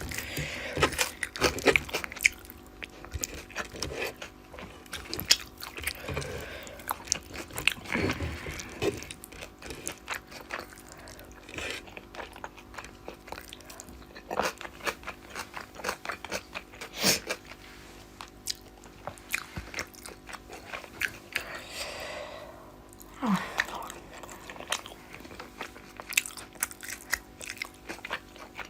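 Close-miked chewing and crunching with many sharp mouth clicks, from a person eating a meal of rice and fish curry.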